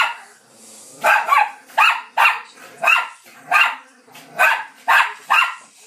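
Small dogs, Bichon Frises and a Löwchen, barking in play: about a dozen short, sharp barks, roughly two a second, in an uneven run.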